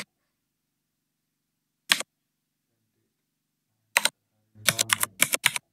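Keystrokes on a computer keyboard: a single key press about two seconds in, another at four seconds, then a quick run of about six keys near the end.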